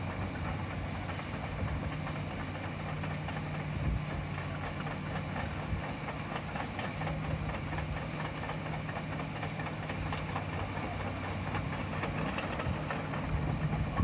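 Fiat Kobelco EX355 crawler excavator's diesel engine running steadily with a constant low hum.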